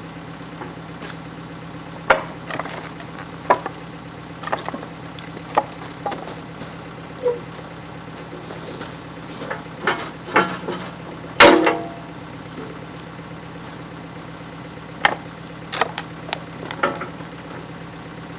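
Caterpillar 430 backhoe's diesel engine running steadily while the trenching bucket and quick coupler knock and clank together about a dozen times, the loudest hit about eleven seconds in. These are the sounds of the bucket being bumped forward into the coupler, which it does not quite fit.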